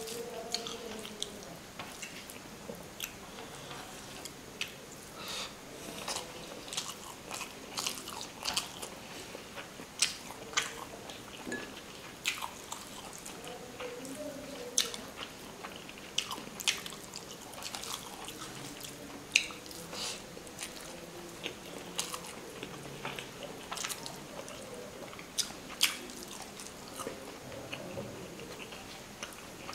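A person chewing and smacking on a mouthful of rice and fish curry eaten by hand, with many sharp wet clicks at irregular intervals.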